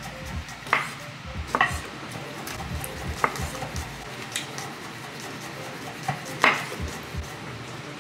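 Chef's knives slicing garlic cloves on wooden butcher-block cutting boards: irregular knocks of the blades striking the wood, the loudest about six and a half seconds in.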